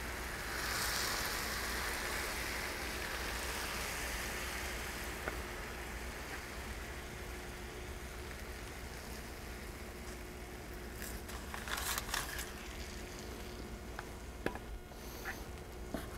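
Hot, freshly boiled honey-and-sugar syrup sizzling and crackling as it is ladled over baklava straight from the oven. The sizzle is strongest about a second in and then slowly dies down, with a few light taps in the second half.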